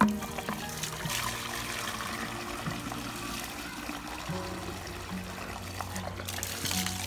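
Water from a garden hose running steadily into a plastic pressure-sprayer tank, filling it to mix a tick-killing pesticide. There is a brief knock at the start.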